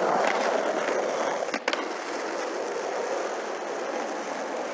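Skateboard wheels rolling fast and loud down a stone-tiled bank, with two sharp clacks of the board about a second and a half in, then a steadier, quieter roll.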